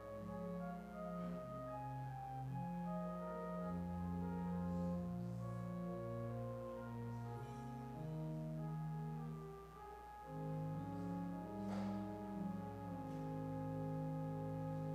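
Church pipe organ playing slow, held chords, with a single brief knock late on.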